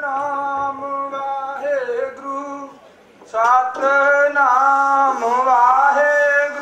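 A man singing alone in two long, drawn-out phrases with wavering held notes, breaking off for a moment about three seconds in.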